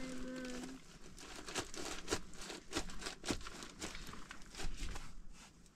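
Irregular crinkling and rustling with many sharp clicks, as of something being handled and unwrapped.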